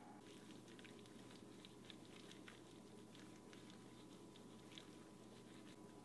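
Faint, irregular wet, sticky clicks of gloved hands rubbing a yellow paste over a raw pork shoulder, over a steady low hum.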